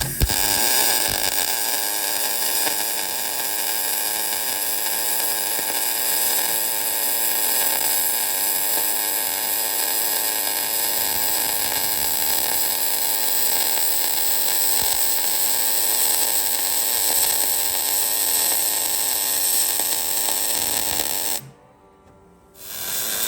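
Electric arc welder running in one long continuous bead, a steady crackling sizzle that starts abruptly. Near the end the arc breaks off for about a second and strikes again.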